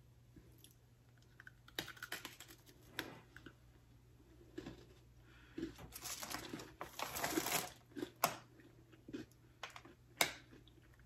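Someone biting and chewing a dark chocolate Oreo cookie: irregular sharp crunches and crackles, the loudest about eight and ten seconds in.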